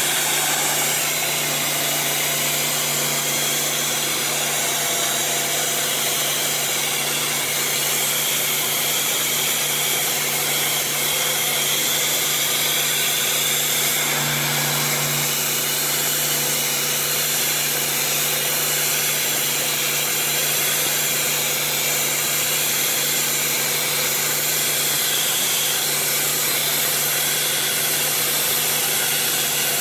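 Pressure washer fitted with a wet sandblast nozzle, blasting a continuous jet of water and sand against a rusty metal truck panel: a steady, unbroken hiss with a steady low hum underneath. The blast is stripping rust to prep the metal for paint.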